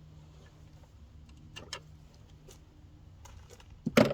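Small clicks and taps of tools and parts being handled, then a loud clank near the end, over a faint steady low hum.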